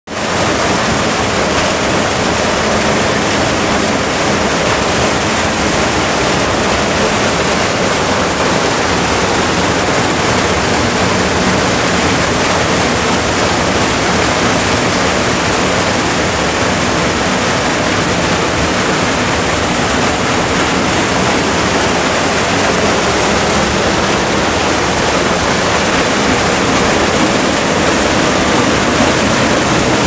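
Narrow waterfall plunging into a rock pool: a steady, loud rush of falling water splashing into the pool.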